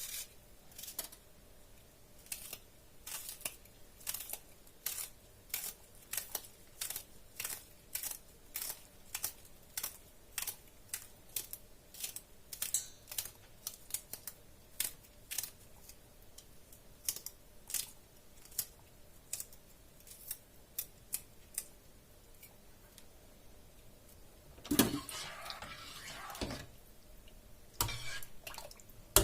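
A series of light, sharp clicks at an uneven pace, roughly one or two a second. Then a louder rustling, handling sound and a couple of knocks near the end.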